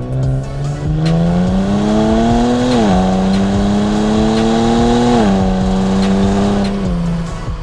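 Kia Stinger GT2's twin-turbo V6 through an MBRP cat-back exhaust, heard from outside the car, accelerating: the pitch climbs and drops at an upshift about three seconds in, climbs again and drops at a second upshift about five seconds in, then holds steady before the engine eases off near the end.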